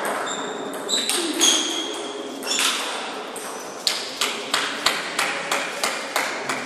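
Table tennis ball clicking on paddle and table, with a quick, even run of about three bounces a second through the second half. Short high pings ring out in the first couple of seconds.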